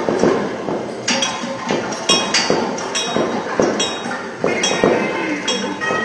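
Temple bell rung over and over in uneven strokes, about two a second, each with a bright metallic ring that carries into the next.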